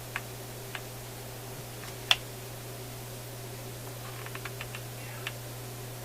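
Light clicks and taps of parts and tools being handled at a workbench, the sharpest about two seconds in and a quick run of small ticks around four seconds in, over a steady low electrical hum.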